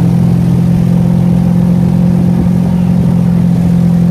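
Motorboat engine running steadily, a loud even drone with no change in speed.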